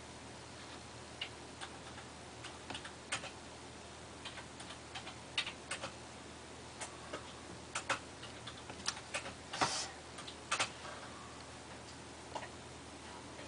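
Scattered, irregular light clicks and ticks, with a denser, louder cluster a little before ten seconds in, over a low steady hum.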